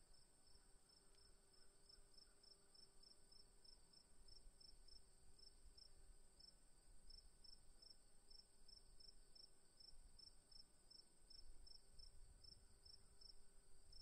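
Near silence: faint room tone with a high chirp repeating about five times a second over a faint steady high whine.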